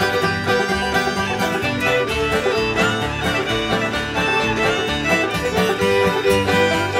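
String band of fiddle, banjos, guitar and upright bass playing an upbeat instrumental passage, with no singing.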